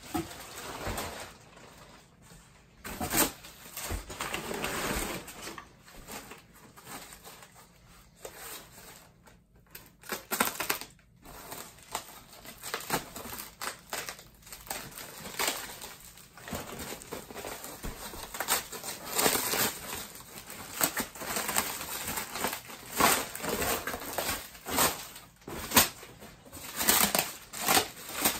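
Packing material rustling and crinkling in irregular bursts as parts are lifted out of a box and unwrapped.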